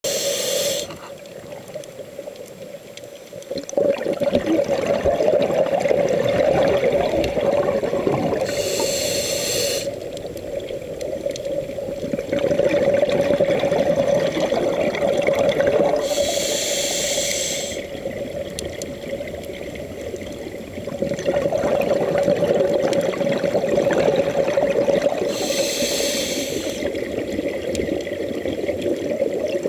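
Scuba regulator breathing underwater: a short hiss on each inhale, four times, about every eight seconds, each followed by a longer stretch of bubbling exhalation.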